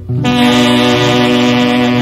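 Recorded music: the band holds one long, steady chord.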